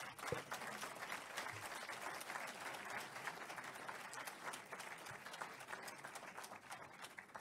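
Audience applauding: many hands clapping in a dense, even patter that thins out near the end.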